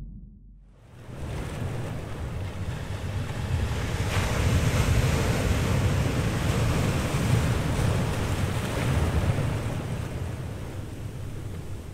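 Large ocean waves breaking: a dense, steady rush of surf and churning whitewater that fades in about a second in.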